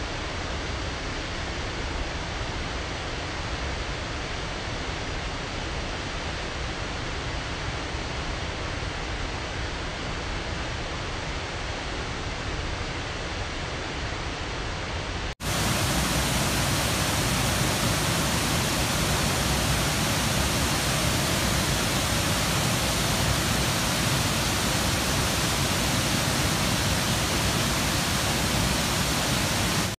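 Waterfall rushing steadily as many streams pour down a cliff into a pool. About halfway through there is a brief dropout, after which the rushing is louder and brighter.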